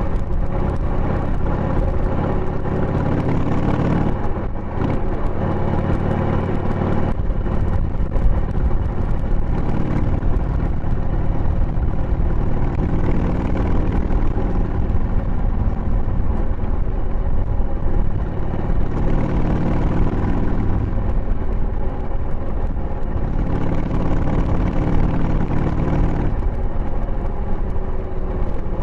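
Harley-Davidson Sportster 883's Evolution V-twin running under way through tapered mufflers with the baffles fitted, heard close beside the engine. The engine note shifts in steps several times during the ride.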